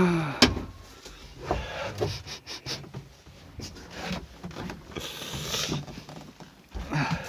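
Handling noise in a small vehicle cab: a sharp click about half a second in, a run of light clicks and knocks, and a few bursts of rustling.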